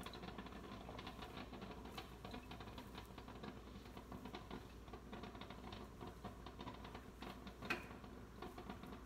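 Faint, dense rustling and crackling of fingers moving through twisted locs held close to the microphone, with one sharper click near the end.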